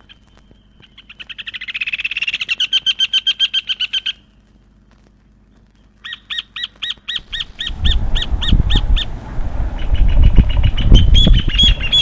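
A bird calling loudly: a fast trill of sharp notes that speeds up and grows louder for about three seconds, then stops. After a pause comes a slower run of evenly spaced notes and another trill near the end, over a low rumbling noise.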